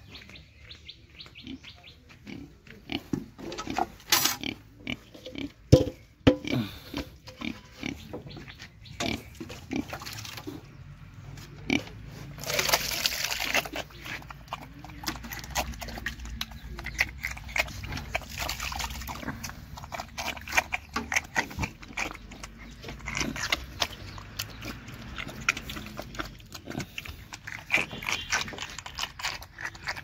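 A piglet eating wet mash from a metal bowl: a long run of short, wet chomping and slurping smacks.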